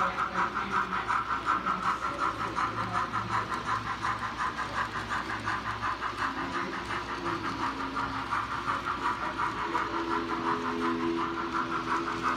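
Rapido Trains OO gauge GNR Stirling Single model locomotive's DCC sound decoder playing rapid, even steam exhaust chuffs through its small onboard speaker as the model runs. A lower steady tone joins about halfway through.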